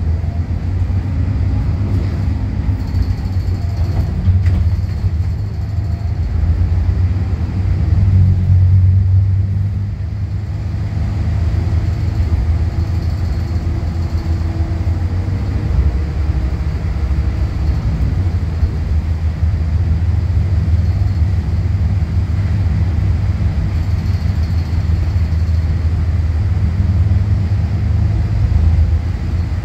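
Volvo B8RLE bus's six-cylinder diesel engine and driveline heard from inside the passenger cabin while the bus drives, a steady low drone whose pitch rises and falls as the bus speeds up and eases off.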